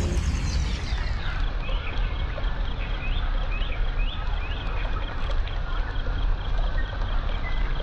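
Birds chirping over a steady low rumble: a run of short, falling chirps about two to four seconds in.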